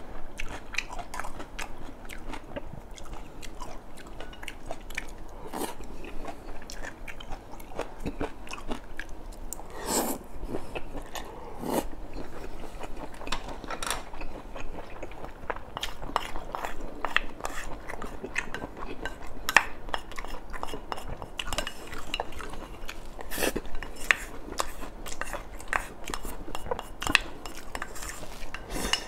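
Close-miked chewing and crunching of food, with scattered light clicks of wooden chopsticks against a ceramic bowl.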